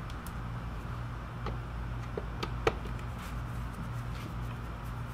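Torx screwdriver working out the screws that hold a car's stock fog light in the bumper: a few scattered light clicks, the sharpest about two and a half seconds in, over a steady low hum.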